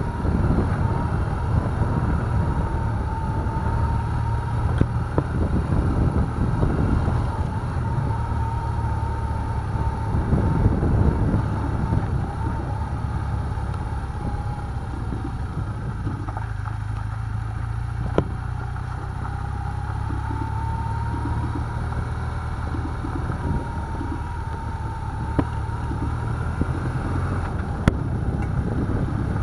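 BMW GS Adventure motorcycle engine running steadily while riding a rough dirt track, with a whine that wavers in pitch and rumble on the microphone. A few sharp knocks from the bike jolting over bumps, the clearest two near the middle and near the end.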